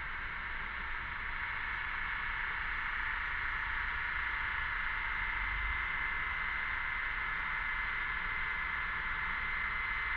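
Cicadas buzzing in a steady chorus, a continuous high drone that swells a little over the first few seconds.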